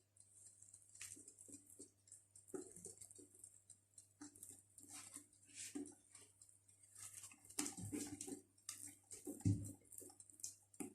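Cake batter being mixed by hand in a bowl: faint, irregular scraping and light tapping of the utensil against the bowl, a little louder toward the end.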